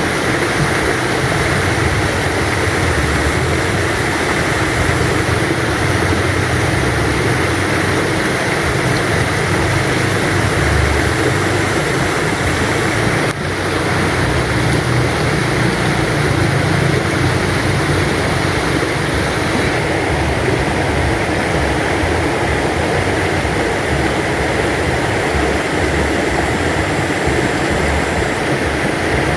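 River stream flowing, a steady rushing of water with a low rumble underneath. A brief dip about halfway through.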